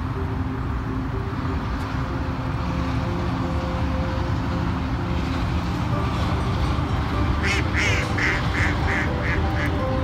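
Mallard duck quacking, a quick run of about seven quacks near the end, over a steady low rumble.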